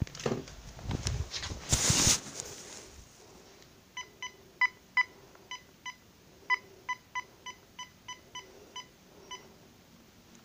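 Phone keypad tones: about fifteen short beeps, irregularly spaced, as a phone number is keyed in. Before them comes a couple of seconds of rustling as the phone is handled.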